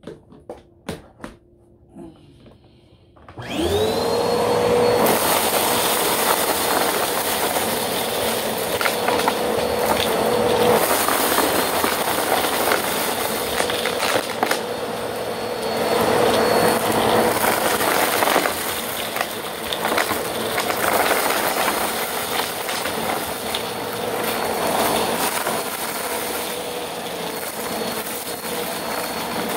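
Bissell bagless upright vacuum cleaner switched on about three and a half seconds in, its motor whine rising quickly to a steady pitch. It then runs steadily while sucking up a pile of confetti and sequins from carpet, with scattered ticks of debris going up into the bin. A few clicks come before it starts.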